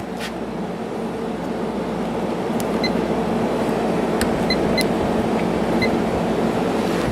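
Hampton Bay 5,100 BTU window air conditioner running steadily, with its Samsung compressor on and its LG fan motor on low: a steady hum under the sound of moving air. A few faint clicks and short high beeps come in the middle.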